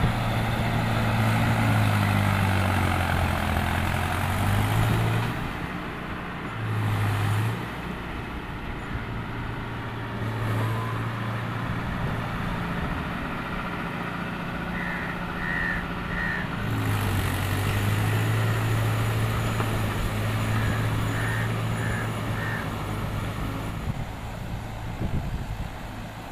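Mahindra Yuvo 575 DI tractor's diesel engine running as the tractor pulls through mud, its note rising and falling with load.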